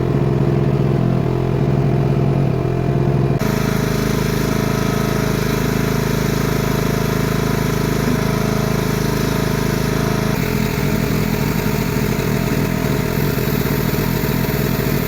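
Homemade mini excavator's engine running steadily. Its sound gets harsher about three seconds in and shifts again about ten seconds in.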